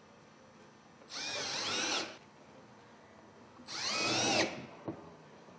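Cordless drill with a 5/16-inch hex driver driving screws into the plastic BlueDuct linear diffuser adapter: two runs of about a second each, the motor's pitch bending as each screw seats, followed by a short click.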